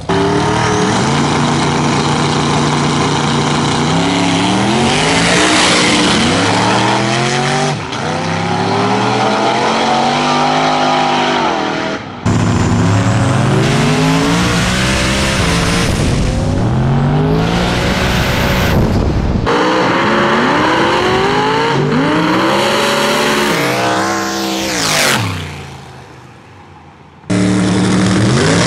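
Drag-race cars accelerating hard down the strip, engine pitch climbing and then dropping at each gear change, over several separate runs that cut abruptly from one to the next.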